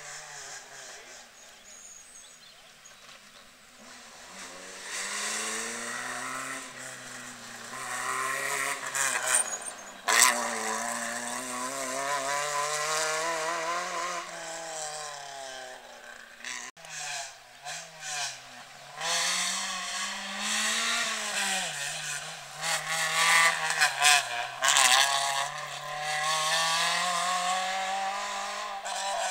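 Rally car engines at high revs, the note rising and falling through gear changes as cars go by at speed on a stage. The sound swells and fades twice, with a lull just past the middle.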